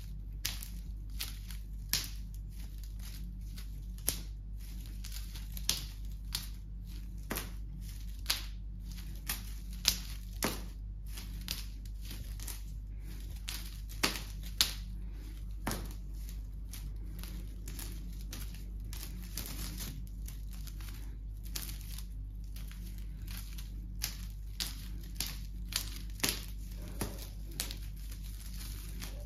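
Irregular sharp clicks and crinkling from a cat wand toy's shiny ribbon streamers being swished and batted about, over a steady low hum.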